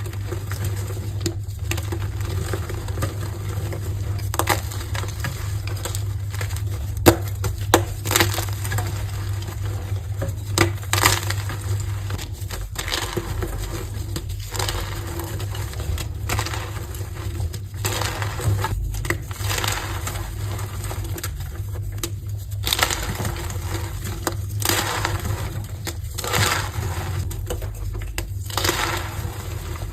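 Colourful heart-shaped gym chalk blocks being crushed and crumbled by hand, a continuous run of crunching and crackling with occasional louder snaps.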